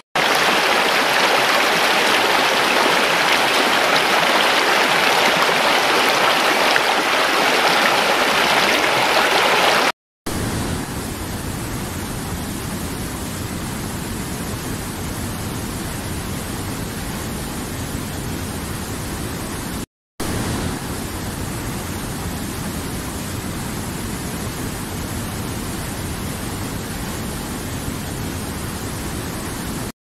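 River water rushing over rocks, a steady rushing noise. It cuts out briefly about ten and twenty seconds in, and is louder and brighter in the first part than after the first cut.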